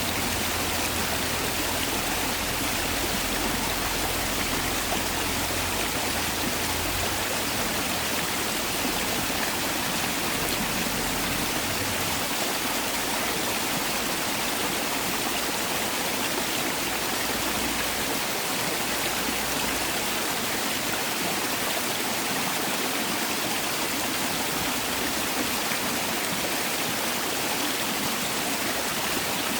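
Mountain valley stream rushing steadily over rocks, a constant full rush of flowing water.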